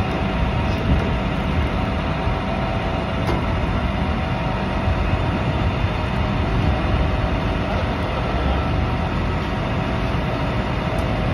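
Flatbed tow truck's engine and winch running steadily as the winch drags a pickup truck slowly up the tilted bed, with a faint steady whine over the low rumble.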